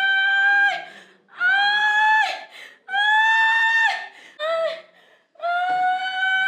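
High-pitched crying in long wails, each held for about a second and a half with the pitch dropping at the end, repeating after short gaps, with one shorter cry in between.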